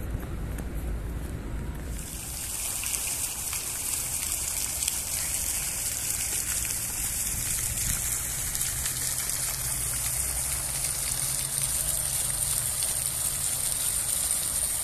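Steady hiss of rushing water that comes in about two seconds in, after a low rumble.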